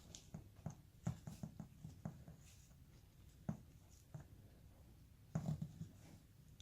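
Carving knife whittling a basswood figure: faint, irregular short scraping cuts and clicks as small shavings come off, bunched about one to two seconds in and loudest about five and a half seconds in.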